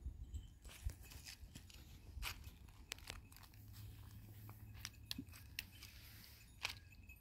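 Footsteps crunching faintly on dry fallen leaves and stony ground: irregular small crackles and crunches over a low rumble.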